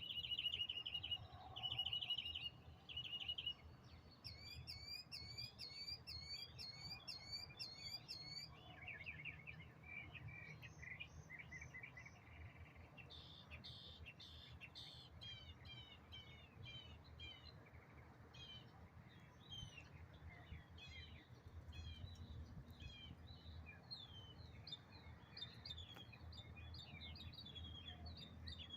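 Several small songbirds calling and singing, faint. There are trilled notes near the start, then a run of about eight evenly spaced two-part chirps, then many short chirps and whistles. A low, steady background rumble runs under them.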